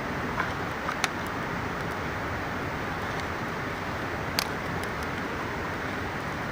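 Campfire crackling, with three sharp pops (the loudest about four seconds in), over the steady rush of a mountain river.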